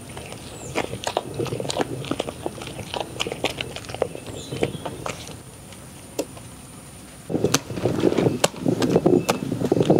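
Hand-turned traditional stone grinder (ataa kallu) grinding soaked urad dal into idli batter. The wet stone gives irregular clicks and squelches, then about seven seconds in a louder continuous grinding begins.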